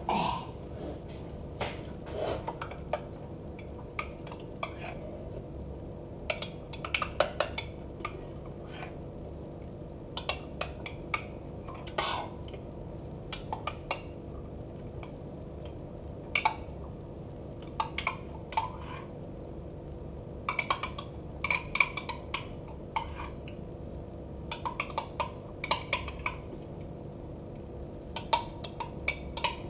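Metal spoon clinking against a drinking glass while stirring and scooping, in irregular clusters of short, sharp clinks.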